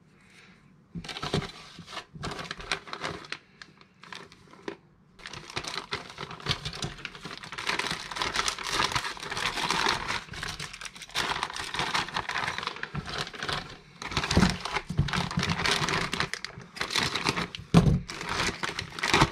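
Plastic packaging crinkling and rustling in irregular bursts as it is handled and unwrapped. It starts about a second in and becomes nearly continuous from about five seconds in.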